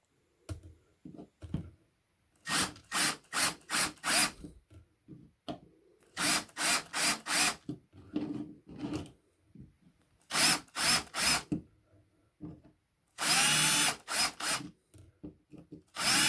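Small power drill run in short bursts, four or five quick pulses at a time with pauses between, then one longer run of about a second near the end.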